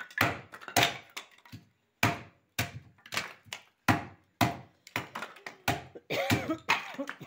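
Hatchet chopping small pieces of firewood on a wooden stump, splitting them into kindling: a quick run of sharp wooden knocks, about two a second.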